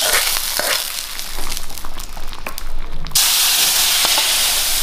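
Hot oil tempering with mustard seeds and curry leaves poured into a pot of sambar, sizzling with a loud hiss and scattered crackling pops. The hiss thins out, then starts again abruptly about three seconds in.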